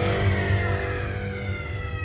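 Eerie ride soundtrack music playing, with several tones gliding slowly downward over a steady low drone.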